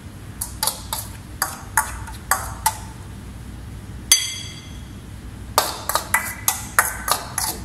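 Kitchen utensils knocking and clinking against bowls and dishes. A spaced run of short knocks is followed by one loud ringing clink about four seconds in, then a quicker flurry of knocks near the end.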